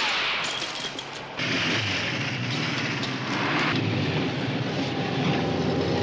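Loud vehicle noise: a dense rumble and hiss that gets heavier about a second and a half in.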